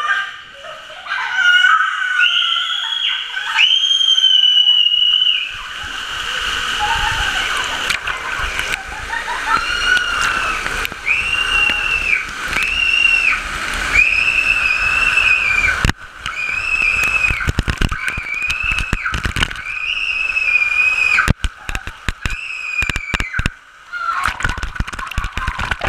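Water sloshing and splashing around inside a rolling OGO inflatable ball, heard from inside the ball, with sudden splashes through most of it. Over it come children's repeated high-pitched screams, each held for about a second.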